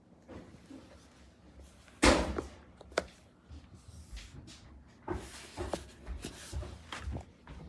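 A loud knock about two seconds in, a sharp click a second later, then a run of lighter knocks and rustling, like objects being handled and set down in a small room.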